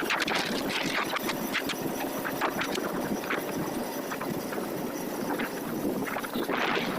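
Running noise of a moving vehicle: a steady rush dotted with frequent short clicks and rattles.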